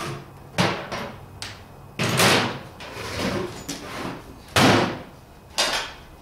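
A wooden 2x6 board being handled and shifted on a work surface with tools on it: about six sharp knocks and scrapes, the longest about two seconds in.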